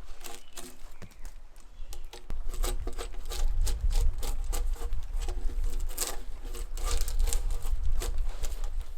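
Hand tool scraping bark off a log in rapid repeated strokes, the bark rasping and tearing away from the wood.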